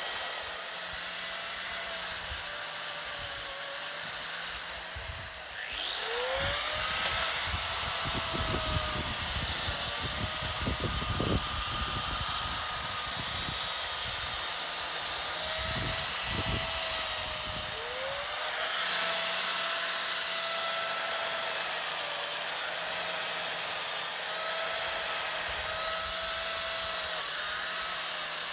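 Small handheld electric power tool running while cleaning up a Honda VFR400R cylinder head, its whine rising as it spins up about six seconds in and again around eighteen seconds in, with a hissy scrubbing noise as it works the metal.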